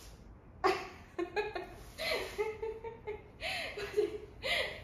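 A person laughing and chuckling in short broken bursts of voice.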